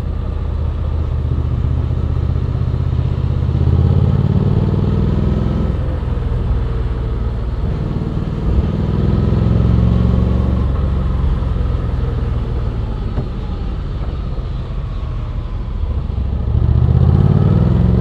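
Honda X-ADV 750's parallel-twin engine running under way. Its pitch rises as the throttle opens about three seconds in, drops back at about six seconds, rises again around eight to ten seconds, holds fairly steady, then climbs once more near the end.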